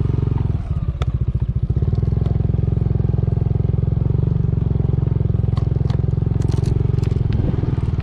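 Motorcycle engine running steadily at cruising speed, with a brief dip about half a second in. A few light clicks and rattles come through along the way.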